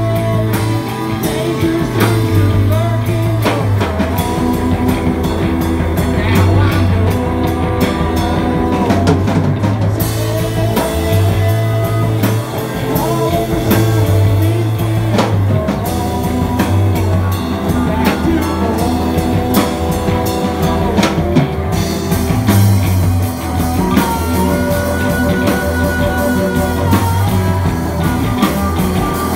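Live rock band playing: a drum kit keeps a steady beat under electric bass, electric guitar and banjo.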